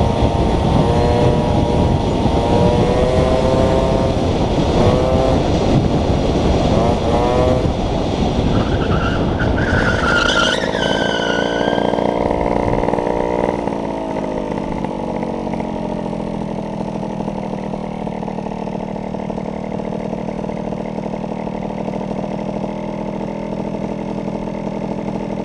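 Small motorcycle riding with heavy wind noise on the helmet microphone. Its engine rises in pitch several times as it is revved, and there is a brief high squeal about ten seconds in. The engine pitch then falls and settles into a steady idle as the bike stops.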